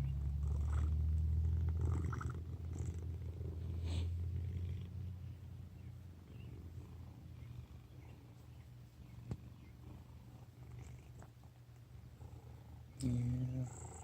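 A fat cat's low, steady rumble that fades away about five seconds in. Near the end comes a short, louder pitched sound.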